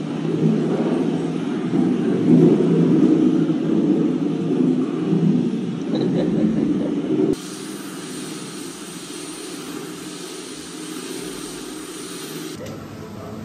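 A loud, steady low rumble that cuts off abruptly about seven seconds in, leaving a quieter steady background noise.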